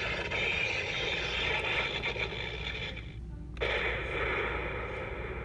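Toy Thor Stormbreaker axe playing its electronic thunder-and-crackle sound effect through a small speaker, twice: a hissing, crackling burst of about three seconds, a brief pause, then a second burst.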